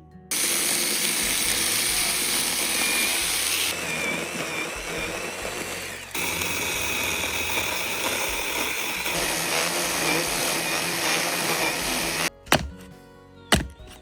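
Electric chainsaw cutting into a tree root, a steady loud buzz broken by a few abrupt changes, that stops suddenly near the end. Then come two sharp chops, like an axe striking the root.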